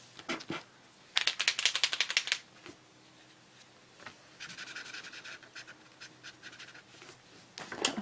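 A Posca paint marker being shaken, its mixing ball rattling in a loud run of rapid clicks for just over a second. A few seconds later comes the fainter scratch of the marker's tip dragging on paper.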